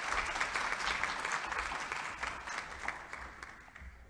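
Audience applauding, the clapping fading away over the last second.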